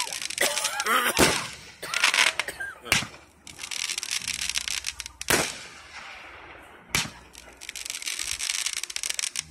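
Aerial fireworks: about four sharp bangs of shells bursting, a second or two apart, with long stretches of crackling between them.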